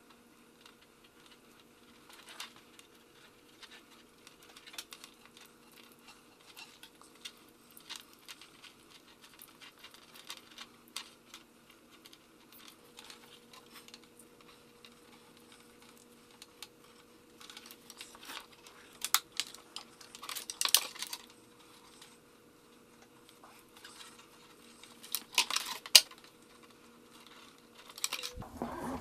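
Power and transducer cables being worked through braided expandable wire sleeving by hand: scattered light rustles and small clicks, with a few louder clatters about two-thirds of the way through and again near the end, over a faint steady hum.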